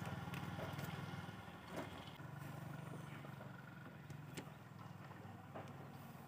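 An engine running steadily in the background, a low hum with a fast even pulse that slowly fades. A few light clicks and taps come from the plastic-framed air filter element being handled.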